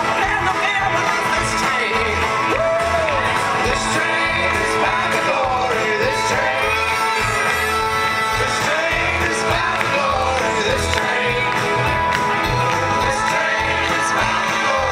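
A large band playing live: acoustic guitars strummed, several voices singing together, and a steady beat, heard from the crowd.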